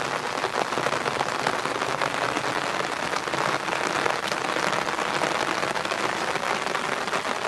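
Steady rain falling on wet paving, a dense even crackle of drops.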